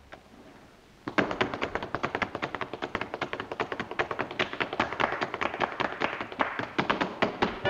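Unaccompanied tap dancing: a fast run of tap-shoe strikes on the floor, several a second, starting about a second in after a brief hush.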